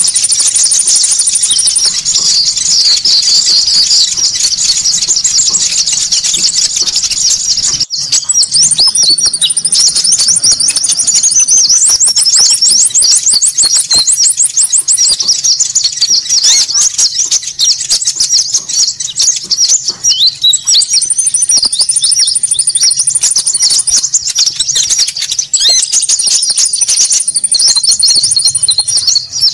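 Bird-lure (pikat) recording of konin birds calling noisily: a dense, continuous chatter of quick high chirps. Several times a thin, very high whistle is held for two or three seconds above the chatter, and about twelve seconds in a fast trill runs for a couple of seconds.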